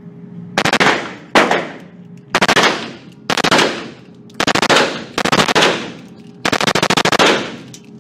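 Heckler & Koch MP7 firing in full auto: seven short bursts of rapid 4.6×30mm shots, roughly a second apart, the last the longest. Each burst rings on in the echo of an indoor range.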